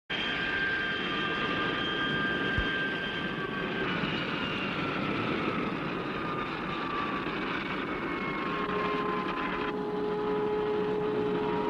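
Aircraft engine running, with several high whining tones that slide slowly down in pitch over a steady rumble.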